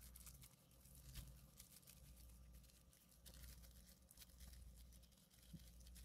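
Near silence, with a few faint crinkles and clicks of a thin plastic ice-pop bag being twisted and knotted shut.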